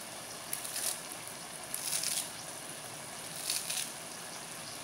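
Spiced mutton masala sizzling in oil in a pressure cooker, while a steel spoon stirs and scrapes through it with a few short scrapes.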